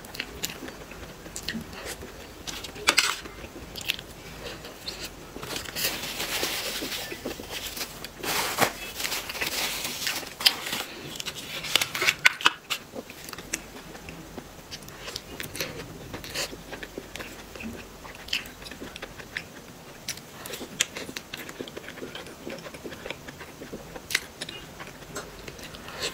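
Close-miked eating sounds: biting into and chewing soft, sticky xue mei niang (cream-filled glutinous rice mochi), with many small mouth clicks and lip smacks and a few brief hissy bursts.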